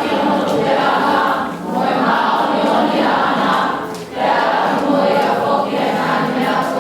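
A vocal group singing together in harmony, in sustained phrases with brief breaks between them.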